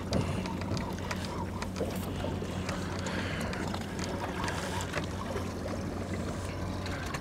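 A boat engine idling with a steady low hum, with a few faint clicks over it.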